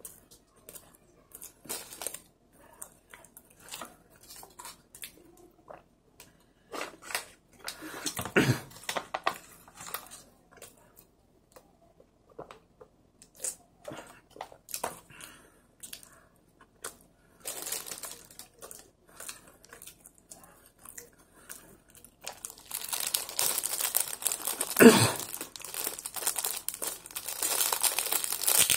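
Soft chewing and small mouth clicks of someone eating bread, then, from about 22 seconds in, a clear plastic bread bag crinkling and tearing as it is opened, with one loud thump partway through.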